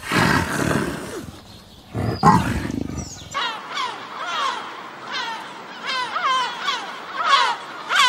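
A big cat growls twice, a rough, low sound. About three seconds in, a flock of gulls takes over, crying with many short, falling calls overlapping.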